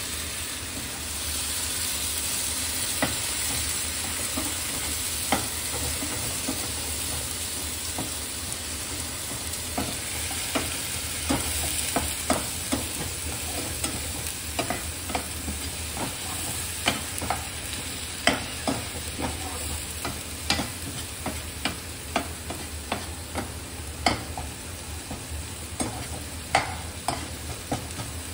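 Onions with freshly added tomato purée sizzling in a non-stick frying pan while a stainless-steel slotted spoon stirs them, scraping and clicking against the pan. The clicks come more often in the second half.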